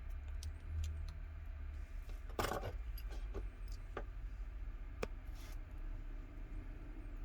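Light clicks and clinks of small metal phone parts and tools being handled, with a brief louder rattle about two and a half seconds in, over a low steady hum.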